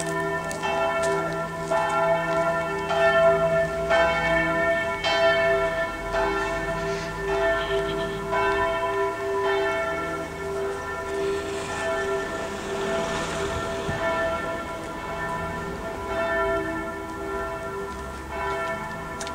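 Church bells ringing, several tones hanging on together, with fresh strikes about once a second at first that grow fewer after about ten seconds.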